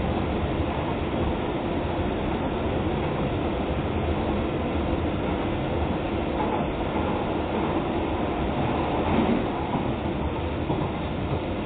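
Docklands Light Railway train in motion, heard from inside the carriage: a steady rumble of wheels on the track, swelling a little about nine seconds in.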